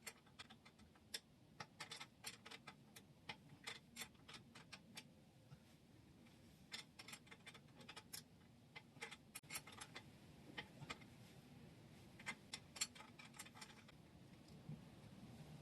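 Faint, irregular clicking of a hand wrench working the crawler-track tension adjuster on a Yamaha YT1070 snowblower, in loose runs of a few clicks a second, as the slack in the track is taken up.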